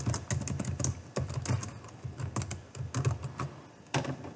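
Typing on a computer keyboard: a run of quick, irregular key clicks as a short phrase is typed.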